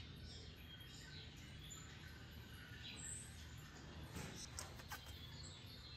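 Quiet room tone with a steady low hum and a few faint high chirps. A short run of soft clicks comes about four to five seconds in.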